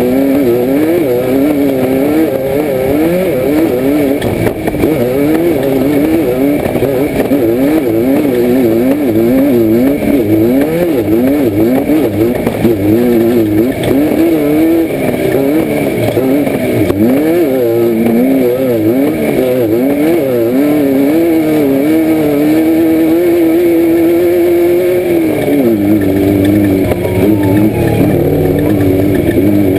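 Baja Bug's 1600 cc air-cooled VW flat-four, heard from inside the car, revving up and down constantly, rising and falling about once a second under racing load. Near the end the revs hold steady, then drop to a lower, steadier note.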